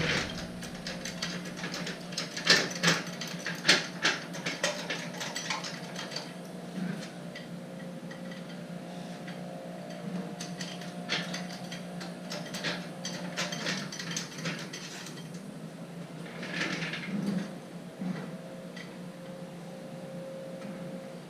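Car jack being pumped by hand to lift the rear of a car: irregular metallic clicks and clanks, thickest in the first few seconds and again midway, over a steady low hum.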